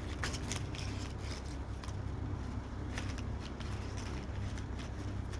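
Paper notes rustling and crinkling in short, scattered scratches as a cat paws and digs through the pile, over a steady low background rumble.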